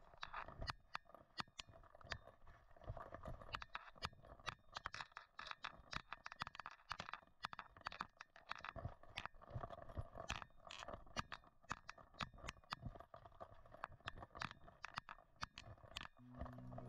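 Footsteps crunching and scraping on a muddy, leaf-littered woodland path, a quick irregular run of clicks and knocks over a faint steady rush. Music comes in just before the end.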